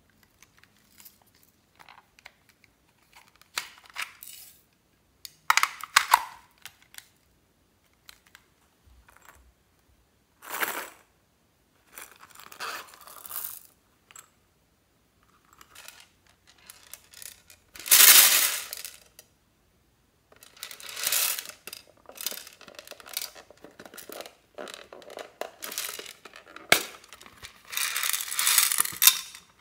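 Plastic toy cases being handled and opened, with small beads and trinkets clicking and rattling in separate short bursts with quiet gaps. Near the end comes a longer clatter as beads spill from a plastic pencil case.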